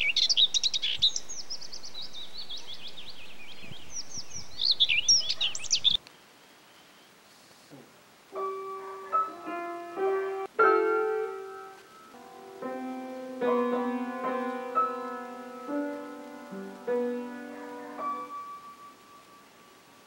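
Birds chirping for about six seconds, cut off suddenly. After a short silence, an upright piano is played slowly, single notes and chords one after another for about ten seconds, fading out near the end.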